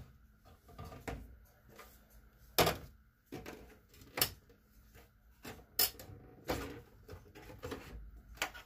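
Plastic and metal parts of an HP workstation's open case being unlatched, lifted out and set down: scattered clicks and knocks, a few of them sharp, the loudest about two and a half seconds and six seconds in.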